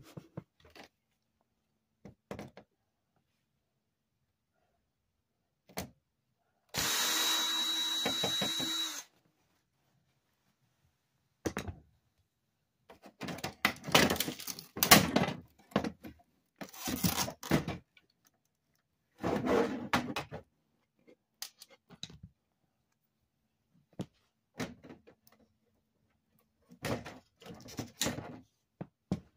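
Cordless drill/driver running for about two seconds with a steady whine, then a string of irregular knocks, clunks and rattles as the flat-screen TV's casing and internal parts are handled and pulled apart.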